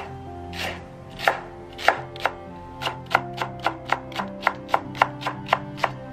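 Kitchen knife chopping a Korean green onion on a bamboo cutting board: a few spaced single cuts at first, then a quicker, even run of about four cuts a second.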